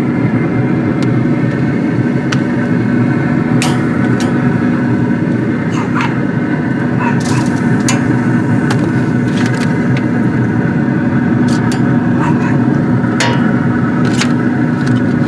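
Metal tongs clicking and scraping against a grill grate and a foil pan, in scattered sharp clicks over a steady machine hum.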